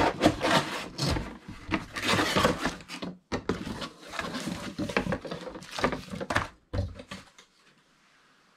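Packaging being handled by hand as a box is unpacked: a run of rustling, scraping and light knocks that stops about seven seconds in.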